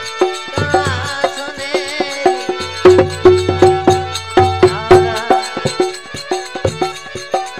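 Instrumental passage of a Rajasthani folk bhajan: a harmonium plays held, reedy melody notes over a quick dholak beat, with dense clicking percussion strokes.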